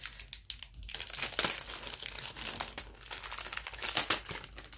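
Clear plastic packaging crinkling and rustling in bursts as an enamel pin on its card backing is worked out of its sleeve by hand.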